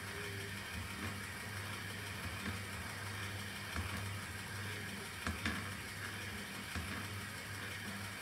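Seibu 2000 series side destination roll sign cycling through its displays: the motor-driven film winds through the sign with a steady low hum and scattered light clicks and ticks.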